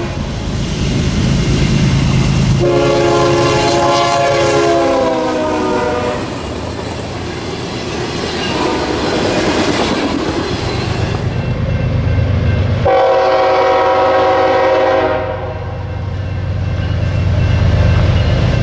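Nathan AirChime K5HL five-chime air horn on a diesel freight locomotive, sounded in two blasts: one about three seconds long that sags in pitch as it ends, and a shorter one a little past the middle. Between and after the blasts come the rumble and rolling noise of the passing train.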